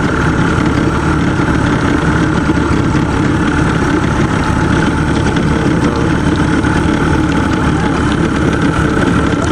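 A motorboat's engine running steadily, an even drone that holds the same pitch.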